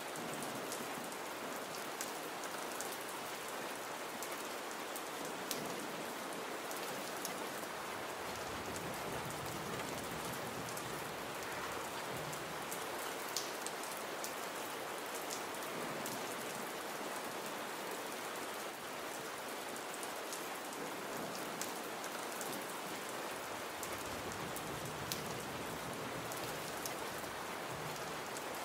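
Gentle rain falling on a surface, a steady even hiss with scattered sharper drop ticks.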